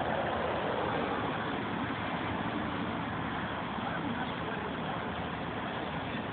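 Steady outdoor background noise of distant traffic, an even hiss and rumble with no distinct events.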